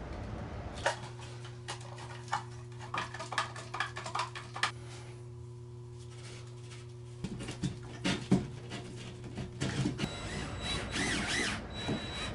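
Small clicks and taps of a screwdriver and wires being worked into a GFCI outlet and plastic electrical box, over a steady low hum. Near the end a cordless drill runs in short spurts with a thin high whine, driving the outlet's mounting screws.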